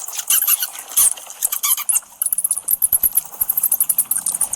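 Bat screeching: a rapid, irregular string of high-pitched squeaks and clicks.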